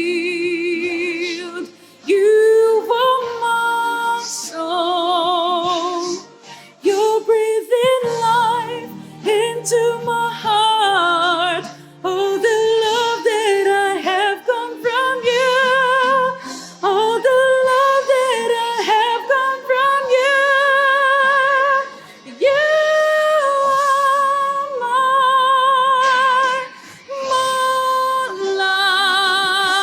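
A woman singing a worship song, her notes held one to two seconds each with vibrato and short breaths in between.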